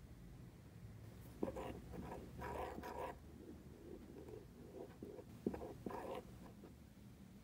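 A spoon stirring thick chocolate cake batter in a ceramic mug: scraping against the mug's sides with a few sharp clicks, in two bouts a few seconds apart.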